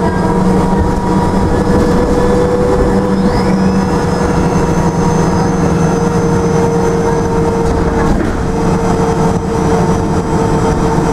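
Karosa B961 articulated city bus running, heard from inside the passenger cabin: a steady engine and driveline drone with a constant hum. A high whine rises and then holds about three seconds in.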